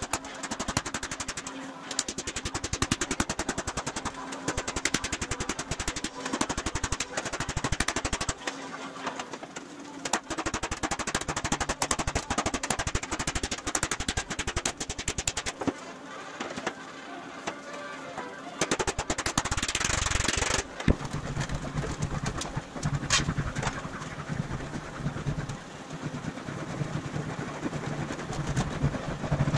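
A mallet beating an aluminium sheet over a sandbag in fast, steady blows, shaping the metal into a curved panel. The blows run through roughly the first half and then thin out, and a low steady hum comes in later.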